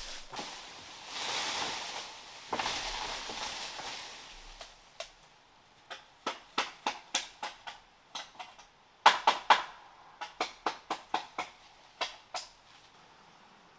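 Rustling and scraping, then a run of sharp knocks in quick groups of about three a second with short pauses between; the loudest group comes about nine seconds in.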